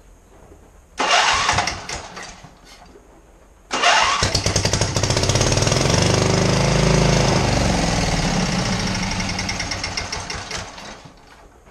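A blown 27 HP Briggs & Stratton V-twin with a fist-sized hole in the block and one spark plug pulled is being cranked over. It gives a short burst of about a second and a half, then a longer run of about seven seconds with a rapid, even pulse that fades out near the end.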